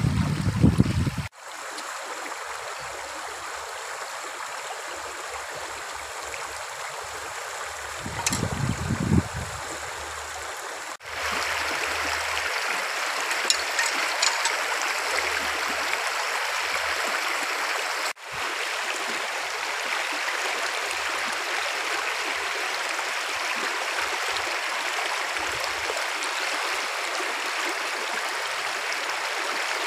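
Shallow rocky stream running and burbling steadily over stones, stepping louder about 11 seconds in. A brief low rumble comes at the very start and again around 8 seconds.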